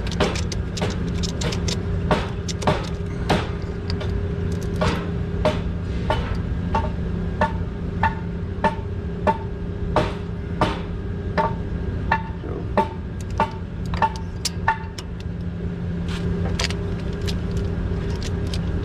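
Hand ratchet with a spark plug socket clicking in a steady rhythm, about two clicks a second, as forklift spark plugs are loosened by hand; through the middle stretch the clicks carry a short metallic ring. A steady low mechanical hum runs underneath.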